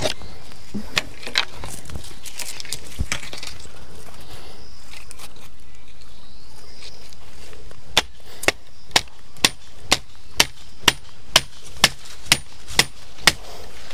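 Repeated sharp knocks from a hand tool striking, a few scattered ones at first, then an even run of about two strikes a second from about eight seconds in, over a steady background hiss.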